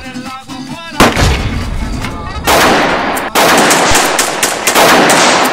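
Rapid handgun gunfire from several pistols at once, the shots running together into a loud, continuous barrage. It breaks in suddenly over a little music about a second in and pauses only briefly just after three seconds.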